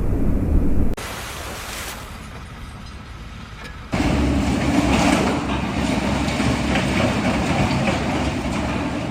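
Heavy machinery running with a dense rumble. It drops abruptly about a second in and comes back just as abruptly about four seconds in.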